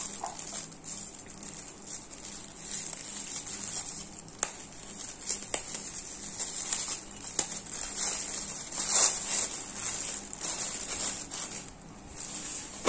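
Scattered light clicks and rustling over a steady high-pitched hiss.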